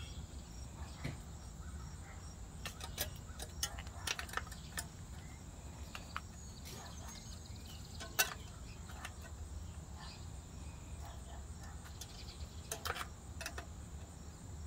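Scattered light clicks of a spoke wrench on the spoke nipples of a bicycle wheel, as the loose spokes are tightened a half turn each, with one sharper click about eight seconds in. A faint steady high-pitched drone sits underneath.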